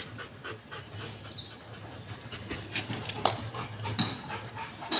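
Rottweiler panting in short, quick breaths, with a few sharper clicks in the second half.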